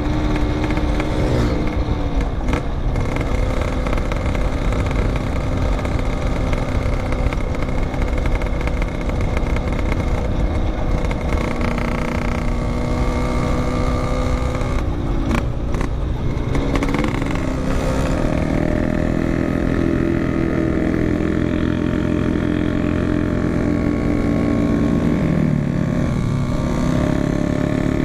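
Yamaha RX-King's 135cc two-stroke single-cylinder engine running while the bike is ridden, heard raw from the rider's camera. The engine pitch falls and rises several times with throttle and gear changes, with a sharp dip about halfway through.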